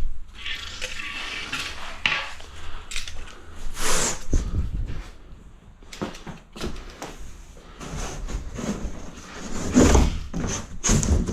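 Fibre-cement sheet being snapped along a knife score and handled: scraping, then several hard knocks and clunks, the loudest about four seconds in and near ten seconds.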